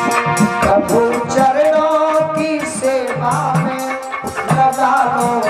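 Live Hindu devotional singing (bhajan): a man's voice takes up the melody about a second in, over sustained instrumental notes, a steady hand-percussion beat and a rattling shaker.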